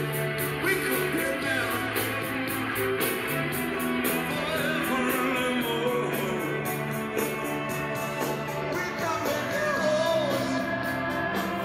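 Background rock song with singing, guitar and a steady beat.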